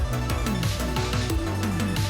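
Background music: an electronic track with a steady beat and sliding bass notes.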